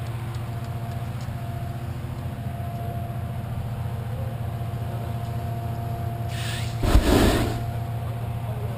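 Steady low engine hum running throughout, with a short, loud rushing burst about seven seconds in.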